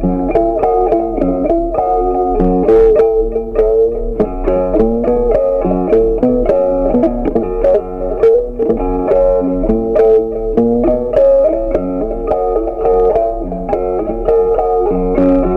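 Background music: a plucked guitar playing a quick, steady run of notes.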